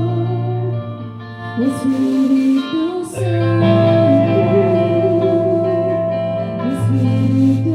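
Worship band playing a song in rehearsal: guitar under a wavering sung line, with a few short hissy accents.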